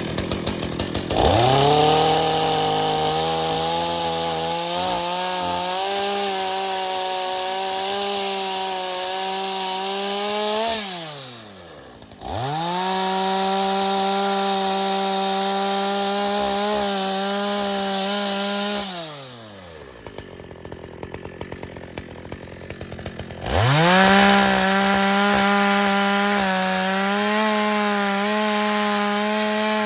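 Two-stroke chainsaw at full throttle cutting wood in three long runs. It drops back to a pulsing idle between runs and winds down near the end.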